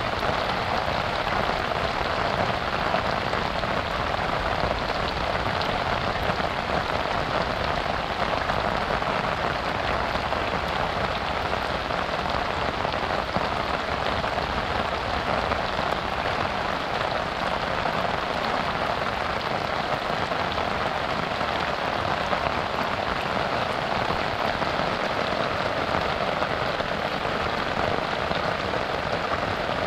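Heavy rain falling steadily: a dense, even hiss of countless drops, with no lulls or thunder.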